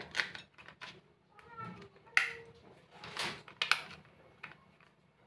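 Batteries being pushed into a plastic toy car's battery compartment and its cover snapped shut: a series of irregular sharp plastic clicks and knocks.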